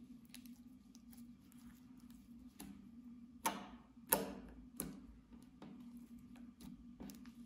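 Slime being stretched and pressed by hand, making small sticky clicks and pops. Two louder wet slaps come about three and a half and four seconds in, as it is pressed flat onto the table.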